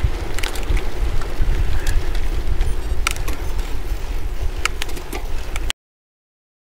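Wind buffeting the microphone of a handlebar-mounted action camera on a moving bicycle, a steady low rumble with tyre noise and scattered sharp clicks. It cuts off suddenly to silence near the end.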